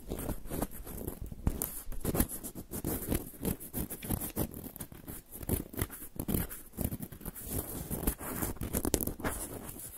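Cotton swabs rubbed and scratched right against the microphone capsule of a Zoom H6 recorder, making a fast, irregular run of close scratching and rustling strokes.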